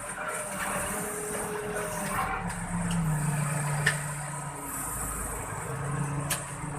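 Motor vehicle engine running steadily, its pitch dropping about three seconds in and rising again near the end.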